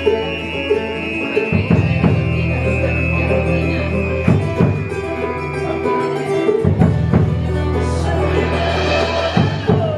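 Band music playing an instrumental passage, with steady bass, a held high melody line and drum hits throughout.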